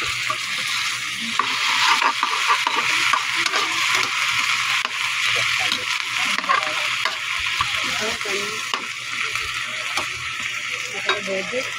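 Squash and okra sizzling in hot oil in a wide pan while a metal spatula stirs them, with frequent scrapes and clicks of the spatula against the pan.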